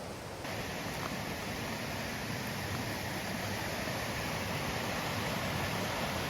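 A steady rushing hiss with no distinct events, stepping up in level about half a second in and then holding even.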